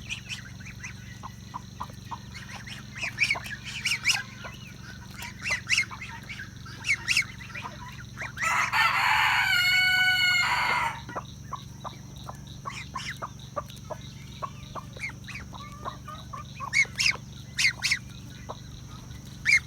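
Chickens clucking in short, scattered calls, with a rooster crowing once: one long call about eight and a half seconds in, lasting some two and a half seconds.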